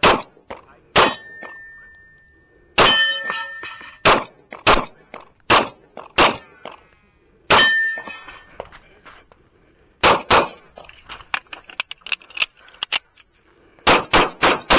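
Kimber Custom II 1911 pistol firing .45 ACP shots in quick strings, about a dozen in all. Several shots are followed by the clang and lingering ring of steel targets being hit.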